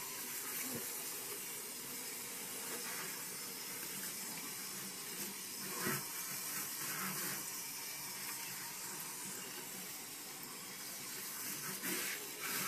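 Water from a pull-down sink sprayer running steadily onto a puppy's wet coat and the stainless steel sink, an even hiss, with a brief knock about six seconds in.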